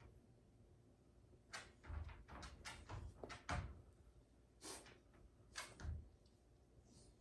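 Faint handling sounds: a run of short rustles and scrapes with three soft knocks, about two, three and a half, and six seconds in.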